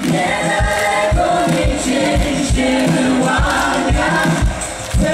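Live band with several voices singing in harmony, the way a choir would, over a steady kick-drum beat about twice a second.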